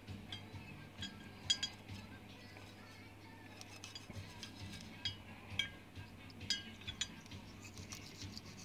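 A metal hydraulic valve-lifter part held in steel tweezers, scrubbed with a brush inside a glass jar of petrol, clinking against the glass: irregular sharp, briefly ringing clinks, loudest about a second and a half in and coming more often in the second half.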